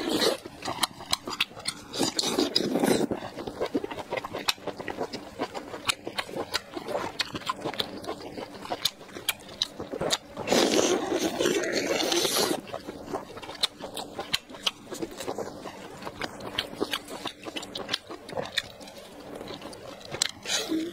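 Close-miked eating of soft, saucy braised food: wet chewing and biting with many small mouth clicks. There are two louder, noisier wet stretches of about two seconds each, one at the start and one about ten seconds in.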